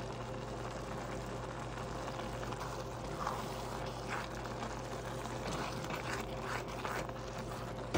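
Chopped leeks and onions sizzling gently in butter in a stainless steel saucepan, stirred and pushed around with a spatula, with a few soft scrapes. A steady low hum runs underneath.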